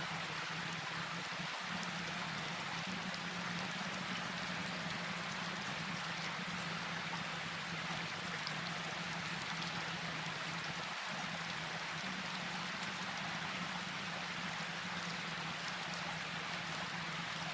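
Steady rain falling, an even hiss with faint scattered drop ticks, over a low steady hum.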